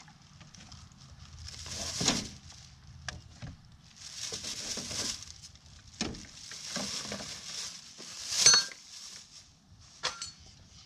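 Plastic bag rustling in several swells, with knocks and clicks as plastic quart bottles of transmission fluid are taken out and set down on the engine. The loudest rustle comes about eight seconds in.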